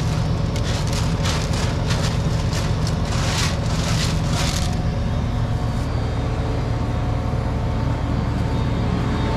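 Tractor engine running steadily at the corn planter, a constant low hum. In the first half a series of short rustling, scraping hisses sits over it, which then stops.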